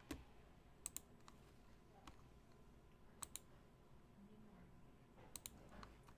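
Faint clicking at a computer: three quick double clicks, about two seconds apart, over near-silent room tone.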